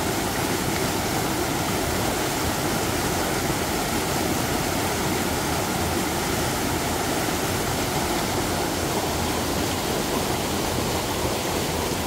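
Fast-flowing forest stream rushing over rocks in a small cascade: a steady, even rush of water.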